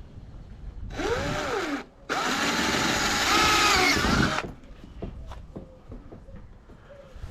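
Power drill boring mounting holes in a kayak hull for an anchor trolley fitting. A short burst about a second in, with a whine that rises and falls, is followed by a longer steady run of about two seconds. A few light clicks come after it.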